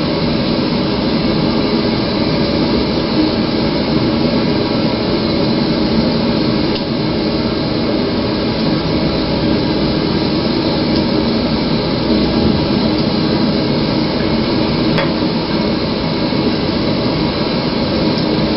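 Steady whooshing background noise with a low hum, running unchanged, and a faint click about fifteen seconds in.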